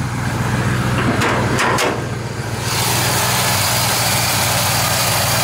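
The V8 engine of a 1958 Chevrolet half-ton pickup idling steadily. There are a couple of short knocks in the first two seconds, and about halfway through the sound turns fuller, with a steady hiss over the engine's low hum.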